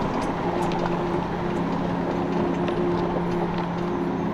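Off-road 4x4 driving slowly over a rocky dirt track: a steady engine drone under tyre and road noise, with scattered light knocks and clicks from rocks under the tyres.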